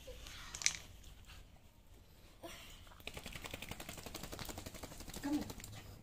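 Towel rustling and crackling against a wet dog's fur, then a couple of seconds of rapid, even light ticks as the freshly bathed small dog gets up and moves about on the tile floor. A brief voice sound comes near the end.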